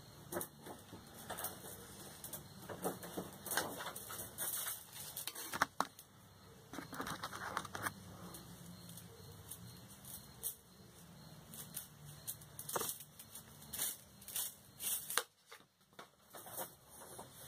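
Bonsai wire being wrapped by hand around boxwood branches: irregular small clicks, scrapes and leafy rustles, with a short lull near the end.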